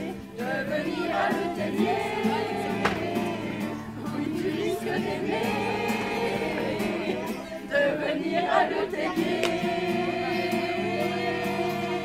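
A group of amateur singers, women and men, singing a French song together in unison, over instrumental accompaniment.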